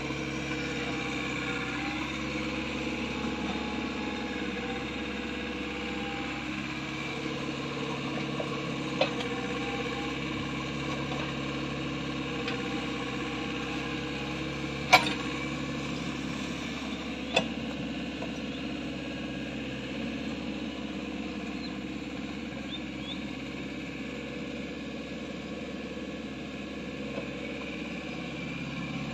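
Mini excavator's diesel engine running steadily, with three sharp knocks, the loudest about halfway through.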